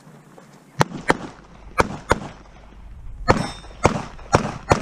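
Eight pistol shots fired in a USPSA stage run. The first four come in two quick pairs, then four more follow about half a second apart.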